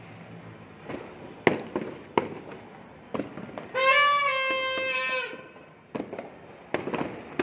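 Fireworks and firecrackers going off, a sharp bang every half second to a second. About four seconds in, a horn sounds one steady note for about a second and a half, louder than the bangs.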